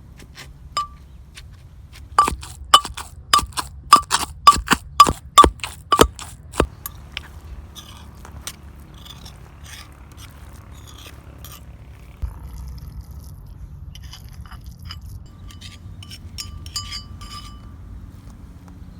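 A kitchen utensil clinking against a dish: a run of about ten sharp, ringing clinks, roughly two a second, followed by quieter scraping and light clinks.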